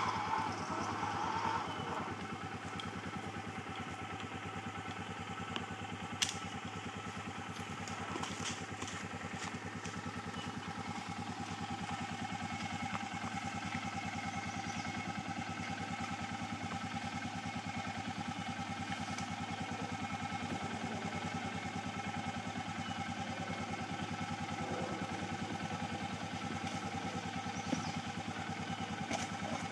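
Polaris 500 HO ATV's single-cylinder four-stroke engine idling steadily, with a few sharp knocks about six to nine seconds in.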